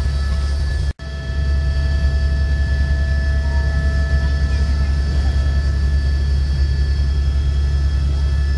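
Helicopter cabin noise in flight: a heavy, rapidly pulsing low rotor throb with several steady high whines over it. The sound drops out for an instant about a second in, then carries on unchanged.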